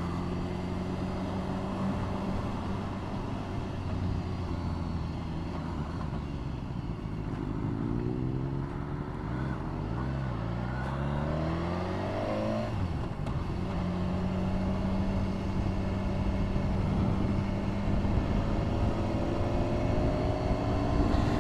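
Motorcycle engine running under way, heard from the rider's position with steady wind and road rush. For a few seconds about a third of the way in, the engine note rises in pitch as the bike accelerates, then settles back to a steady note.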